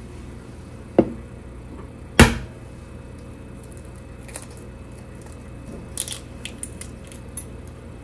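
A raw egg knocked against the rim of a stainless steel bowl to crack it: a lighter tap about a second in, then a louder crack with a short metallic ring about a second later. Near the end come small faint crackles as the shell is pulled apart, over a steady low hum.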